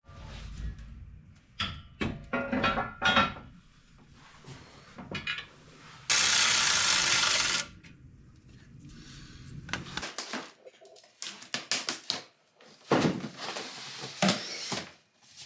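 Metal parts and hardware clinking and clattering as they are handled, with scattered short knocks. Around the middle there is a loud, even, hiss-like rasp lasting about a second and a half.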